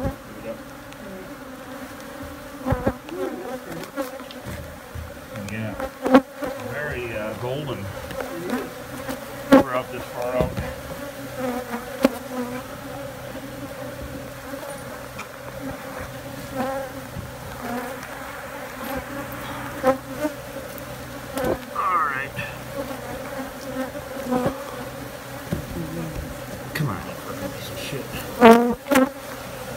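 A disturbed colony of Africanized honey bees buzzing in a steady, dense hum, with single bees buzzing close past now and then. Scattered knocks and scrapes from work on the wooden floorboards over the nest cut through it, the loudest a cluster near the end.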